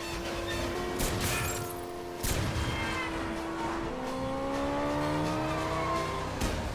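Movie chase sound mix: a BMW Rockster motorcycle's engine and car engines running with tyre squeal, over a music score. There are sudden rushing surges about one and two seconds in, and the engine pitch climbs in the second half.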